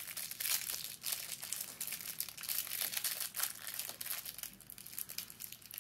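A small clear plastic bag crinkling and crackling in a child's fingers as he picks at it to open it and get at a squishy toy. The crackles are irregular and thin out after about three and a half seconds.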